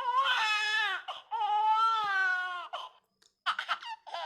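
Baby-crying sound effect played from a phone sound-effects app: two long high-pitched wails, then a string of short sobbing cries.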